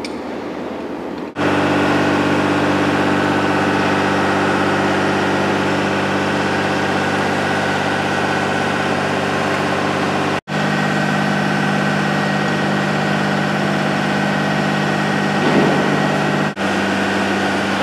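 A heavy lorry's engine idling steadily, breaking off sharply three times, about a second and a half, ten and a half and sixteen and a half seconds in.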